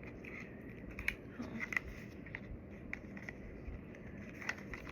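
Packaging of teeth-whitening strips being opened by hand: faint scattered clicks and light crinkles of the box or pouch.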